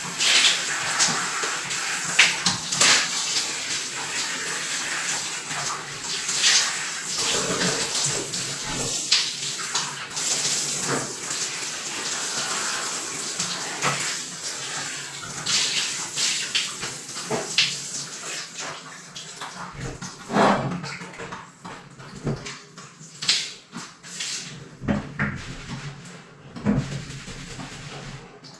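Water sloshing and splashing in a jacuzzi tub, with many short splashes over a steady watery rush. It grows quieter over the last several seconds.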